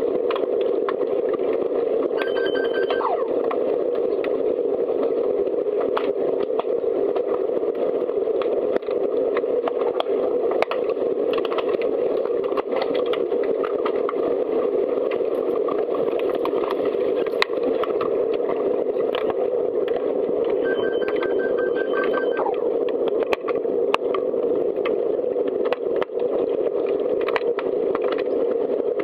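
Underwater hockey game sound: a steady, muffled noise of water with scattered clicks and knocks. Twice, about 2 s in and again about 21 s in, a short pulsed electronic beep sounds for under a second.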